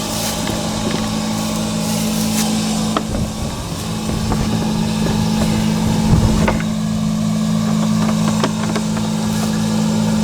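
An engine or motor running steadily at a constant speed, giving an even low hum, with a few knocks and rustles from handling.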